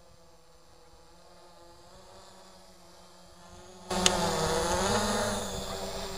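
Quadcopter's electric motors and propellers buzzing, faint while it hovers at a distance, then jumping to loud about four seconds in as it swoops close, its pitch rising and falling with the throttle before easing off near the end. A sharp click is heard just after it gets loud.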